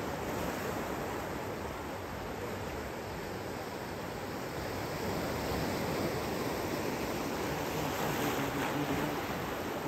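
Small waves breaking and washing through the shallows at a beach: a steady rush of surf, swelling a little in the second half.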